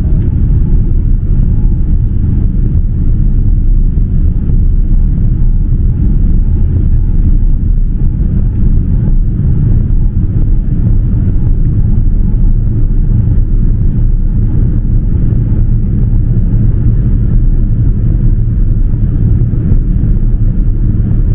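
Steady low rumble of engine and airflow noise inside a Boeing 787-9's cabin during descent, with a faint steady hum above it.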